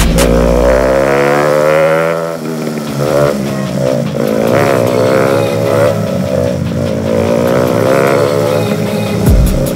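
Motorcycle engine running on the move, its pitch climbing over the first couple of seconds and then rising and falling with the throttle.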